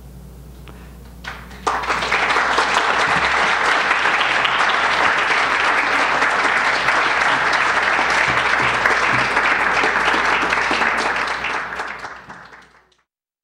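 Audience applauding: dense clapping from many hands that starts about a second and a half in, holds steady, then fades out and stops near the end.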